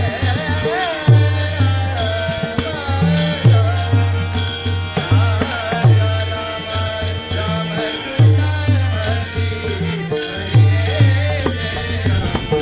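Music with a heavy, repeating bass beat, fast ticking percussion and a wavering melody line.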